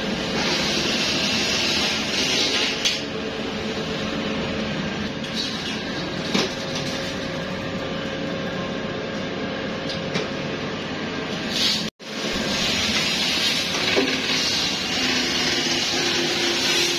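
Steady machinery noise in a plastic pipe workshop: a continuous hiss over a low rumble, with a few short knocks and clatters. The sound cuts out briefly about twelve seconds in.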